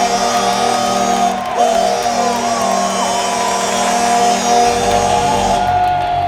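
The New York Rangers' goal horn blares a steady held chord over a crowd cheering and whooping after a goal. Near the end deeper music comes in under it.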